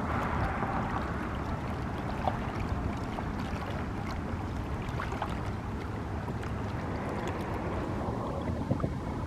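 Small pieces of floating lake ice clinking, ticking and crackling against each other in lapping water. Many light clicks over a steady wash, with a few sharper cracks about two seconds in and near the end.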